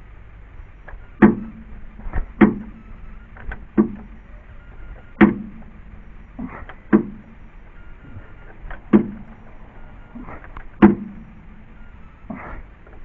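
Hydraulic floor jack being pumped by its handle: a run of sharp metallic clunks, often in pairs, about every one and a half seconds, each with a short ring.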